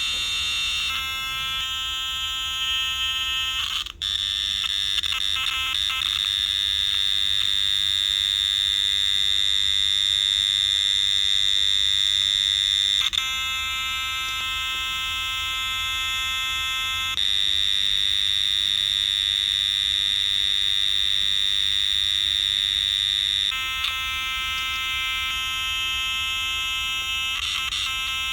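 A homemade two-BC547-transistor oscillator driving a small tweeter, giving a continuous shrill electronic tone. It switches back and forth several times between a high, piercing whistle and a lower, buzzier tone, with a short click about four seconds in.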